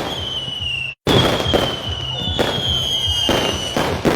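Fireworks going off: a run of bangs mixed with high whistles that slide slowly down in pitch. The sound drops out for a moment about a second in.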